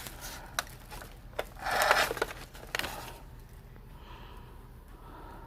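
A plastic remote-control toy truck and its remote being handled: scattered sharp clicks and a short scraping rustle about two seconds in.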